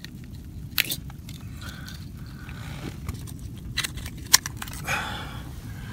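Knife blade scraping and clicking against an oyster shell on rock as a wild native oyster is pried loose, with a few sharp clicks, the loudest a little after four seconds in.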